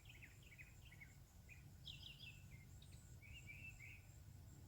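Faint chirping of small birds, short calls scattered throughout over a low, steady background hum.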